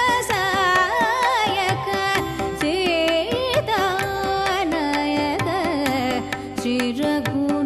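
Carnatic devotional music in raga Yamuna Kalyani, adi talam: a wavering, ornamented melody line with frequent pitch slides over steady mridangam and tabla strokes.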